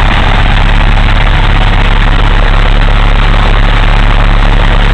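Piper PA-22 Tri-Pacer's piston engine and propeller running steadily at low rpm, heard loud from inside the cabin.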